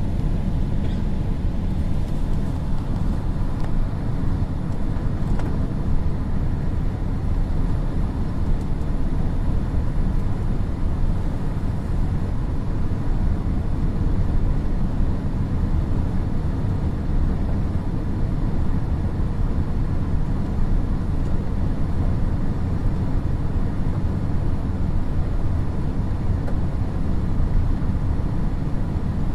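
Steady cabin noise inside a Boeing 787-8 airliner: an even, low rumble of the engines and airflow that holds level throughout.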